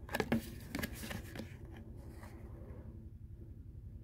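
A folded cardboard perfume-sample card handled in the fingers: a few short rustles and taps in the first second and a half, then only a faint steady low hum.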